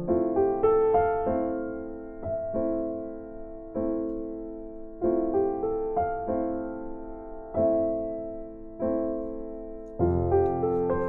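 Background piano music: soft notes and chords struck about once a second, each left to fade.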